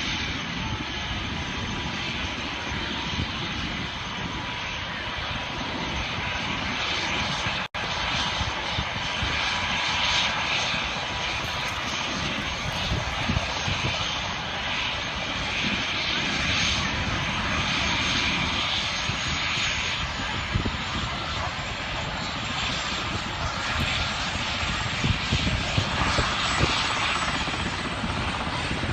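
EMS helicopter's turbine engine and rotor running, with a thin high whine that rises slightly about two-thirds of the way through. The sound cuts out for an instant at about eight seconds.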